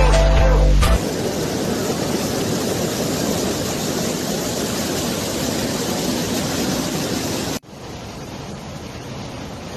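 Steady rushing of a waterfall, taking over as background music ends about a second in. Near the end it cuts abruptly to a quieter, duller rush of water.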